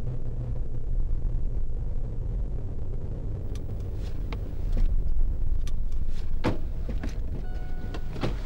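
Low, steady rumble of a car heard from inside the cabin, with scattered small clicks and two sharper knocks in the second half, and a brief steady beep-like tone near the end.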